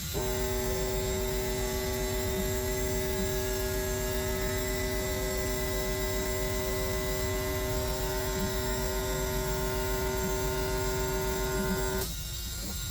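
Laser cutter running while it cuts a hardboard clock face: a steady machine hum with a strong fixed high tone. It starts abruptly and cuts off sharply about twelve seconds in.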